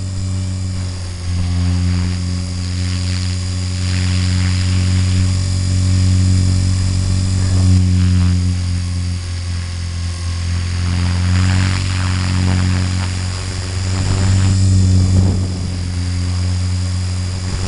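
RC helicopter in flight, heard from its onboard camera: a steady low drone of the rotor and motor with a faint high whine, wavering slightly in level as it manoeuvres.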